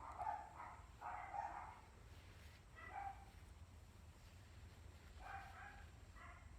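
Moluccan cockatoo making short, soft calls, about five of them with pauses between.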